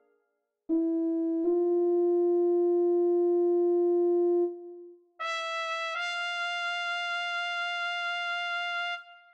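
Score-playback brass from notation software: a soft sustained note enters about a second in, moves to a second pitch and fades away near the middle. A higher, brighter brass note then comes in, steps up once and is held until just before the end.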